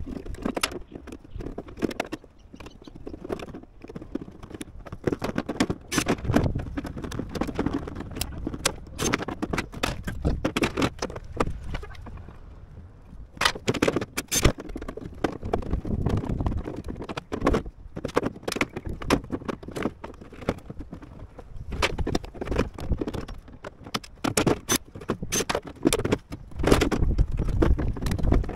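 Tin snips cutting out sections of a sheet-steel rain head: an irregular run of sharp metallic snips and clicks, mixed with the thin metal box being handled and rattling.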